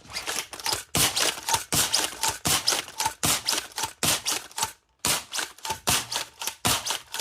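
3D-printed spring plunger dart blaster being primed and dry fired over and over with no dart loaded: a quick run of sharp mechanical clacks, two to three a second, with a short pause about five seconds in. Dry firing does not harm this blaster's plunger seal.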